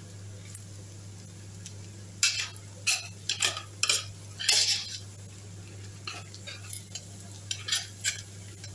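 Metal spoon scraping and clinking against a stainless-steel pot as frying ground egusi melon seed is stirred and turned so it won't stick to the pot. The scrapes come in a quick cluster from about two to five seconds in, then a few lighter ones near the end, over a steady low hum.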